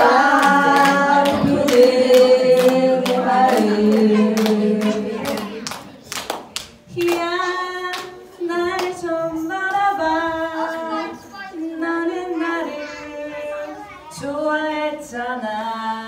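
Women's a cappella group singing in harmony over rhythmic clapping for the first several seconds. From about seven seconds in, a single woman's voice takes the lead, singing into a microphone with lighter backing.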